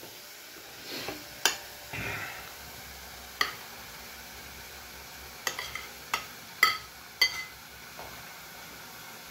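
Sliced hot-dog sausage pushed with a metal spoon from a glass plate into a pot of frying ground beef: a faint steady sizzle, with a string of sharp ringing clicks of the spoon knocking against the plate and a short rush as pieces drop into the pot about two seconds in.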